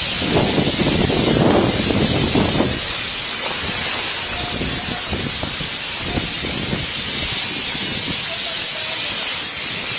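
A loud, steady hiss, with rumbling knocks through the first three seconds.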